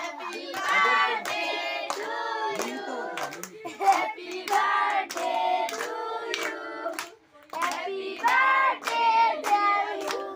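A group of adults and children singing a birthday song together while clapping in time, about two claps a second, with a brief pause about seven seconds in.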